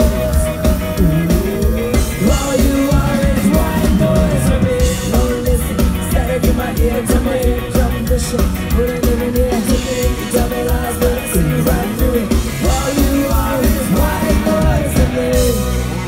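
Ska-punk band playing live: electric guitars and bass over a steady beat, with a sung vocal line. The song stops at the very end.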